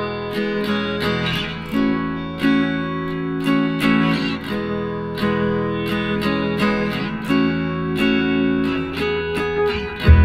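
Background music: acoustic guitar played in a steady run of plucked and strummed notes.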